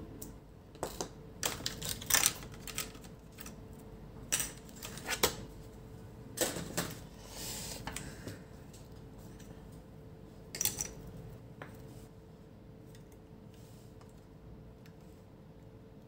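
Irregular sharp clicks and taps of a small precision screwdriver and loose parts on an opened laptop's chassis and motherboard, coming in clusters with a short rustle in the middle, then thinning out near the end. A faint steady hum runs underneath.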